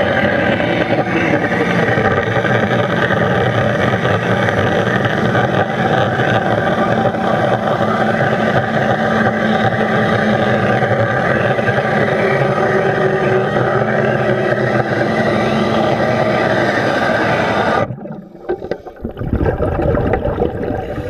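Underwater pneumatic cold-cutting tool, an A-0301 air-driven 5 mm cutting disc, running as it cuts a beam, with a loud steady whine. It cuts off abruptly about 18 seconds in, leaving a quieter, uneven water sound.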